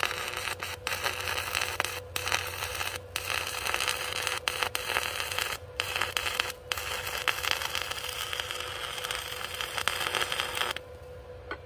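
Stick arc welding with a Power Fist 110 inverter arc welder: the electrode arc runs as a steady, dense hiss, broken by several short gaps where it drops out, and stops about a second before the end.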